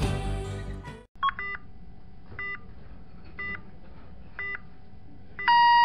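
Music fades out. Then come four short electronic beeps about a second apart, and near the end a loud, long steady electronic tone begins.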